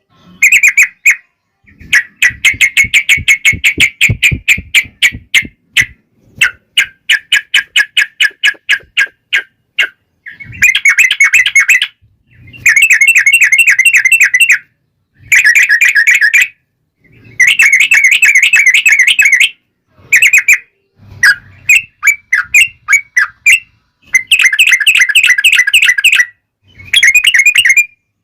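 Yellow-vented bulbul (trucukan) singing in loud, fast rolling phrases of quickly repeated notes, each phrase one to three seconds long with short pauses between. It is the long rolling 'ropel' song of an aroused bird.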